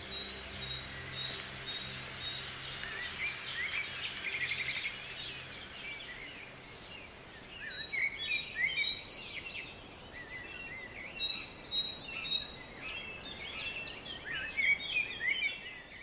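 Several songbirds singing and chirping: short whistled notes, quick slurs and a brief trill, growing busier and louder in the second half.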